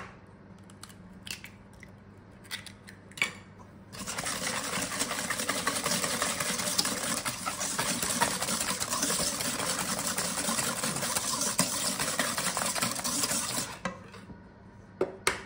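Wire balloon whisk beating chocolate, butter, sugar and egg batter in a stainless steel mixing bowl: rapid, continuous scraping and clinking of the wires against the metal from about four seconds in, stopping near the end. Before it, a few light taps.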